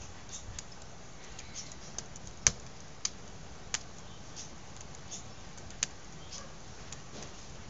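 Wood fire crackling: irregular sharp pops and snaps over a steady hiss, the loudest pop about two and a half seconds in.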